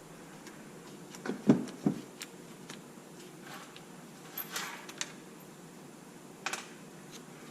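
Scattered light clicks and taps of small screws and a hand tool being handled against the plastic chassis of an RC truck during disassembly, the loudest about one and a half and two seconds in and another near the end.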